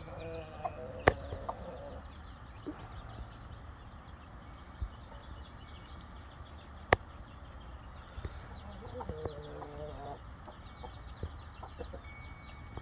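Chickens clucking in short low calls at the start and again about nine seconds in, over a steady scatter of high peeping from young chicks. Two sharp clicks stand out, about a second in and near seven seconds.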